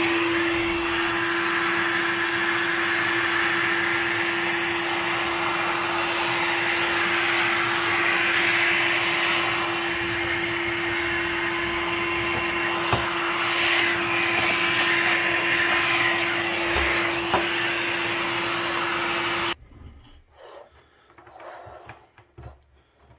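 Vacuum cleaner running steadily with a constant hum, sucking up sawdust from a freshly drilled hole in a wooden desktop, with a couple of small clicks along the way; it cuts off abruptly near the end.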